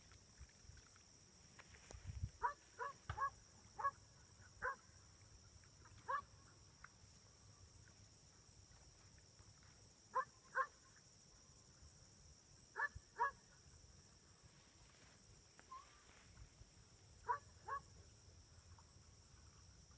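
Short, pitched animal calls, mostly in close pairs, coming back every few seconds.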